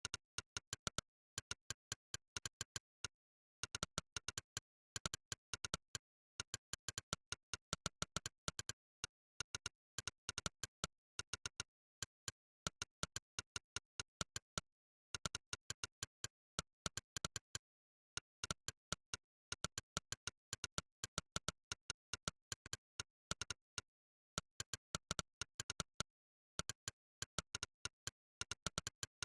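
Monkeytype's "click" keypress sound effect, a sharp click for every key typed. The clicks come in quick runs of many per second, broken by short pauses.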